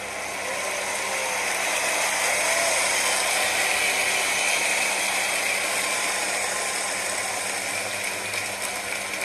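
Audience applauding: a dense clatter of clapping that swells over the first few seconds and then slowly eases off.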